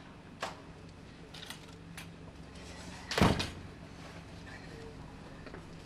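A front door being opened, with a few sharp clicks and knocks, then one loud sharp bang about three seconds in. A steady low hum runs underneath.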